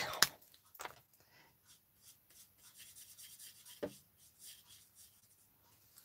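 Faint, scratchy strokes of a Stampin' Blends alcohol marker's nib rubbing across cardstock as a leaf is coloured in, with a single soft knock a little before four seconds in.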